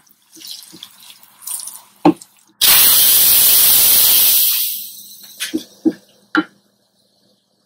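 Electric pressure cooker venting its steam: a loud hiss that starts suddenly about two and a half seconds in, holds for about two seconds, then fades away. A few light clicks come before and after it.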